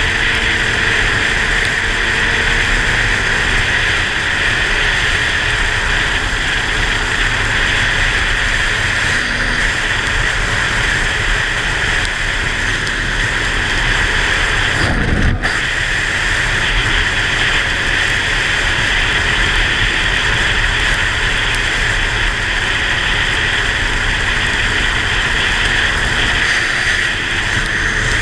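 Steady rush of wind on the microphone and tyre noise on a wet road from a motorcycle at road speed, with the engine's low hum underneath. About halfway through there is a brief swell in the low rumble.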